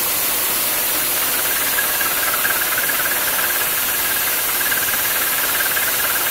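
Vertical milling machine running with the table power feed engaged while the end mill cuts a 3-degree angle on a part held on edge. The sound is a loud, steady hiss, and a faint higher tone joins it about a second and a half in.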